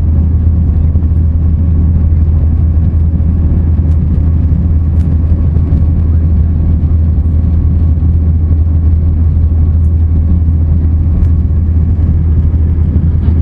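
Steady, loud low rumble of a jet airliner's cabin in cruise or descent: engine and airflow noise, constant throughout.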